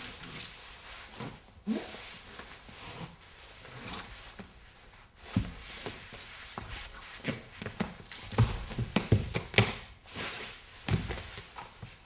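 A dancer's body and shoes thudding and scuffing against the floor as he rolls and crawls, in irregular knocks and shuffles that come thickest and loudest in the second half.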